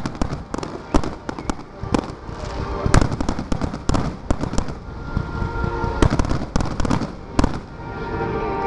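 Fireworks display: aerial shells bursting with many sharp bangs in quick succession, the loudest about three seconds in.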